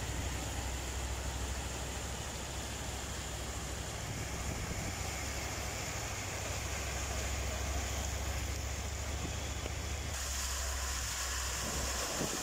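Steady rushing of floodwater and rain in a flooded street, with a low wind rumble on the microphone. About ten seconds in it turns hissier, with less of the low rumble.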